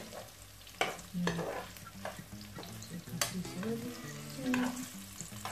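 Metal spoon stirring scrambled egg and bell pepper in a frying pan, with a few sharp clicks where the spoon strikes the pan, over a steady sizzle of frying.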